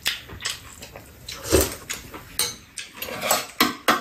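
Eating at the table: a metal spoon and chopsticks clinking irregularly against bowls, mixed with mouth noises of eating. The loudest clinks come about a second and a half in and near the end.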